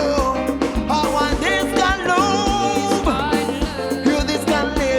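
Live band playing an upbeat African pop groove: kick drum and bass keeping a steady beat, with a melody line sliding up and down in pitch over the top.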